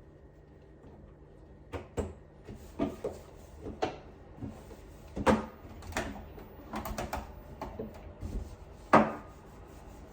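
A series of irregular knocks and clatters, like household things being handled and set down, starting about two seconds in, with the sharpest knock near the end.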